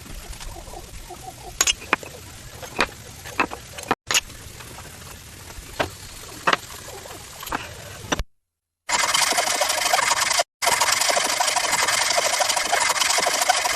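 Woodworking at the bench: a dozen scattered sharp taps of tools on wood, then, after a brief silent gap, a loud steady rasping noise of a tool working the wood.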